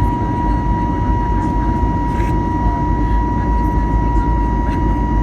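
Airbus A320neo jet engines and airflow heard inside the cabin: a steady low roar with a thin, even whine held over it.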